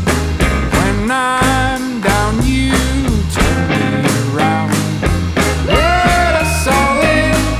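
Rock song with a steady drum beat, bass and guitar, and a melodic line that slides between held notes.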